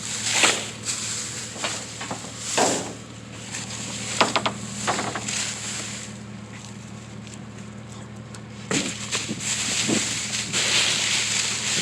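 Intermittent rustling, crinkling and light clatter of trash bags and packaging being rummaged through in a dumpster, over a steady low hum.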